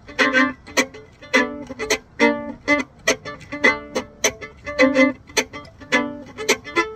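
Solo fiddle playing funky chop backup: short bowed chords alternating with sharp, scratchy percussive bow chops in a steady rhythm.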